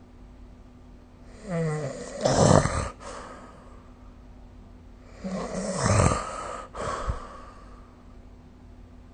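A person snoring: two snores about four seconds apart, each lasting roughly one and a half seconds, with a faint steady hum underneath.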